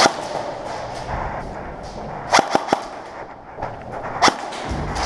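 Airsoft gun shots, sharp cracks: one at the start, a quick burst of three about two and a half seconds in, and another about a second and a half later.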